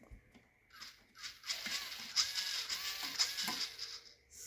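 RC servo being driven back and forth: a high, buzzing gear whine whose pitch rises and falls, from about one and a half seconds in for about two seconds, after a few light clicks.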